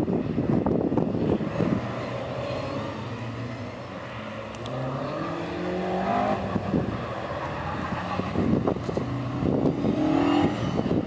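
Engines of classic rear-wheel-drive Fords climbing a steep hairpin road, revving up through the gears, with rising engine notes around the middle and again near the end. Wind buffets the microphone.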